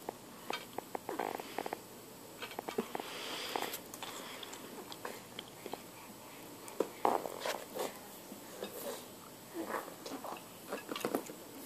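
Scattered clicks and taps as a baby handles a bead-maze toy, its beads and wires knocking, with a few short soft baby vocal sounds in between.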